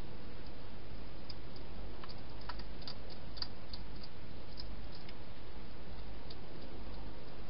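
Hedgehog eating at food bowls inside a plastic feeding box: scattered small irregular clicks and crunches over a steady hiss.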